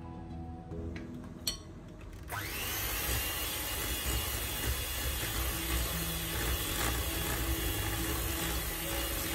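Electric mixer switched on a little over two seconds in and running steadily, beating buttercream ingredients in a bowl. A short sharp click comes just before it starts.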